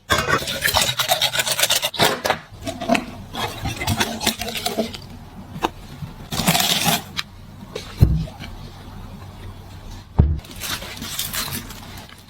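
Kitchen food-prep sounds: quick, repeated scraping and rubbing strokes, with two dull thumps about eight and ten seconds in.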